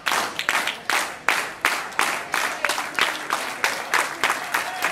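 Wrestling crowd clapping in unison, a steady beat of about three claps a second.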